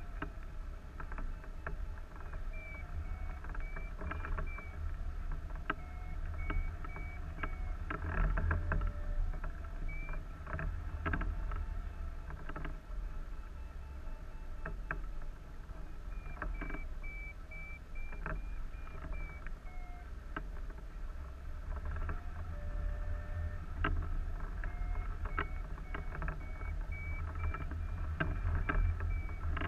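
Wind rushing and buffeting over the microphone of a camera on a hang glider in flight, with scattered clicks and rattles. Over it runs a flight variometer beeping in quick short tones whose pitch steps up and down, the signal of the glider climbing in a thermal.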